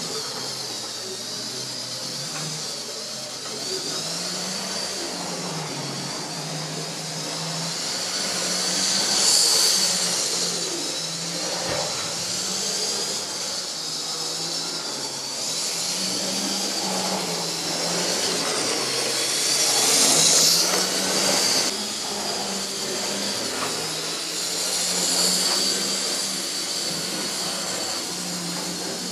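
Small electric motors of analogue (non-digital) model railway locomotives running, a high wavering whine over a low hum from the trains on the track. It grows louder about nine seconds in, again around twenty seconds and near the end, as trains pass close.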